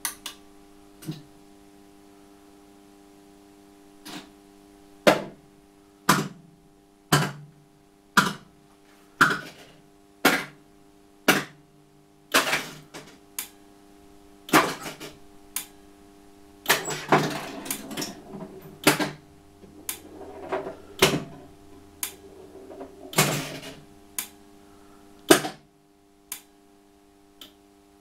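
Data East Star Wars pinball machine cycling its solenoid coils in the self-test: a sharp clack about once a second, with a busier rattling stretch toward the end, over the machine's steady electrical hum.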